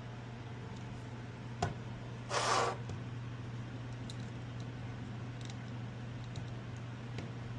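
Small plastic clicks and a brief rustle, about two seconds in, from an action figure and its plastic gear being handled, over a steady low hum of air conditioning.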